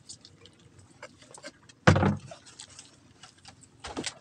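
Small clicks and taps of a meal being eaten by hand at a table, with one loud thump about two seconds in and a smaller one near the end.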